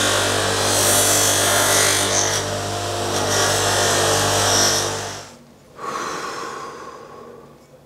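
Electric bench buffer running with a steady motor hum, a resin micarta knife handle pressed against its spinning cloth buffing wheel with a loud rushing hiss as it is polished. The sound stops sharply about five seconds in, leaving only a faint fading hiss.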